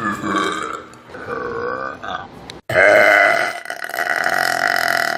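People burping: two short burps, then, after an abrupt cut just past the middle, one long, loud burp lasting about three seconds.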